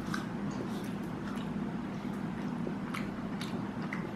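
Someone chewing a piece of dried, sugar-preserved fruit, with a few faint wet mouth clicks, over a steady low background hum.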